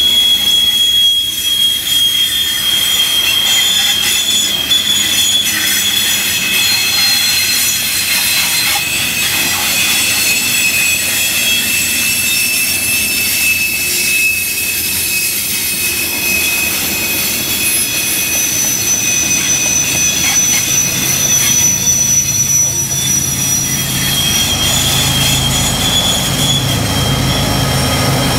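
Coal train hopper cars rolling past with steady high-pitched wheel squeal, several tones drifting slightly in pitch over the rumble of wheels on rail. In the last several seconds the engine of a trailing Norfolk Southern GE ES44AC diesel locomotive grows louder as it approaches.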